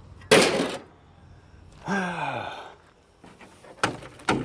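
A loud breathy rush, then a short vocal sound falling in pitch, with two light knocks near the end.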